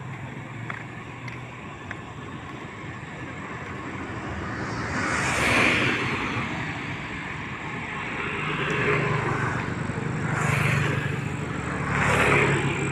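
Road traffic passing close by: vehicles go by one after another, each a rush of engine and tyre noise that swells and fades, about five and a half, ten and twelve seconds in, over a steady low rumble.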